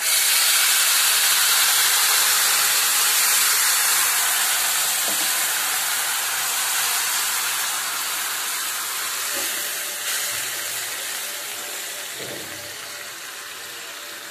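Water poured into a hot pan of oil-fried vermicelli and peanuts, setting off a loud sizzle that starts all at once and slowly dies down into a steady bubbling hiss.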